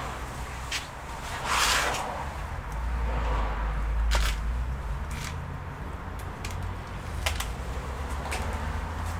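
Handling noise from laptop repair work: a brief rustle, then scattered light clicks and taps of small parts and tools, over a steady low hum.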